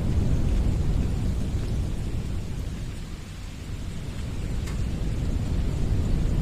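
Winter wind blowing in a low, steady rumble that eases off in the middle and builds again toward the end.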